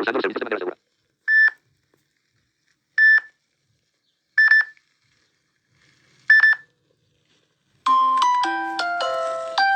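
Samsung Galaxy S7 Edge ringtones playing in turn. A busy tune cuts off early on, then a sparse chime tone sounds four short, high pings one to two seconds apart. Near the end a bright melody of quick separate notes begins.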